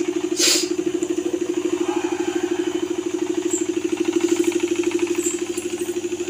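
Water purifier's internal pump running with a steady, rapidly pulsing hum. A brief noise cuts in about half a second in.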